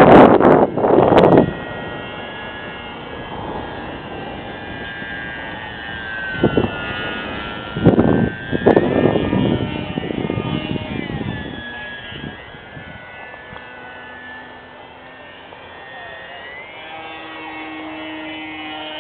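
Hacker A20-26M brushless electric motor and propeller of a small RC aerobatic airplane whining in flight, the pitch gliding up and down with throttle and passes. Loud gusts of wind hit the microphone at the start and again about seven to ten seconds in.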